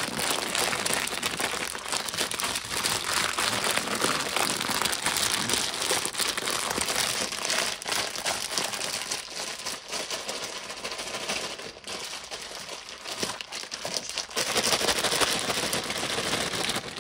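Plastic grain spawn bag crinkling and the grain inside rustling as the bag is shaken and kneaded by hand, mixing the freshly injected culture through the grain so it does not pool at the bottom. The rustling runs on unbroken, easing a little past the middle.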